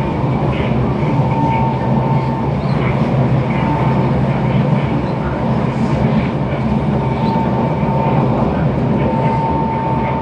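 Inside a Kawasaki Heavy Industries C151 metro train running at speed: a steady rumble of wheels on the rails and running gear, with a thin high tone that comes and goes several times.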